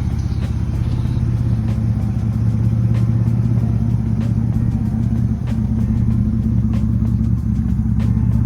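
Car engine running steadily, a low even drone with faint scattered ticks, most likely the 1986 Nissan 300ZX's 3.0-litre V6.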